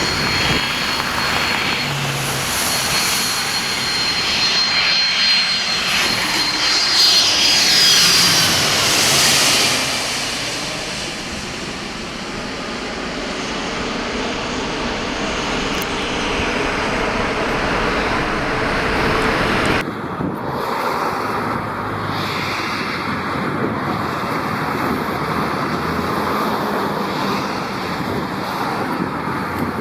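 Jet airliner on final approach passing close overhead. The loud engine noise has a high whine that falls in pitch as it goes by, about eight seconds in. About two-thirds of the way through, the sound cuts abruptly to a steadier, quieter jet noise with a thin steady high tone.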